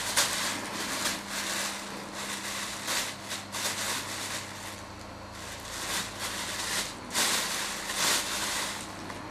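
A plastic carrier bag crinkling and rustling in irregular bursts as a cat plays in it.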